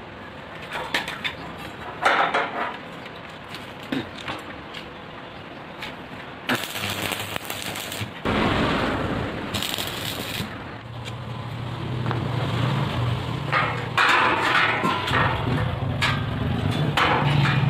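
Electric arc welding on a steel gate frame: the arc crackles and spits irregularly. From about halfway through the sound turns louder and denser with a low hum. Sharp metal knocks come a few times, from steel pieces being handled.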